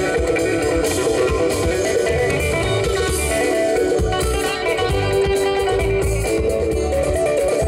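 Live band music: a drum kit with cymbals and a guitar playing a steady groove.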